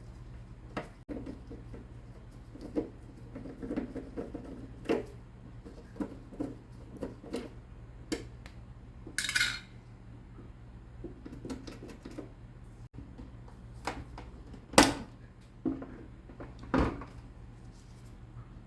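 Parts and tools clinking and knocking as a DeLonghi espresso machine is taken apart. Scattered small clicks and clatters, a brief rattle about nine seconds in, and sharper knocks near the end, over a steady low hum.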